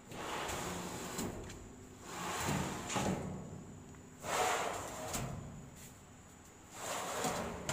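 Stainless steel cabinet drawer with a wire basket sliding out and back in on its metal runners, four strokes in all, each ending in a short knock as the drawer stops.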